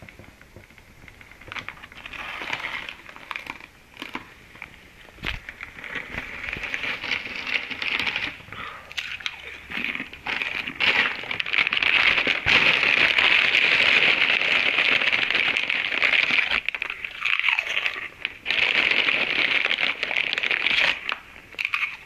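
Close crunching and crinkling of a person eating a snack right at the microphone, with many small clicks; it turns loud and dense about ten seconds in.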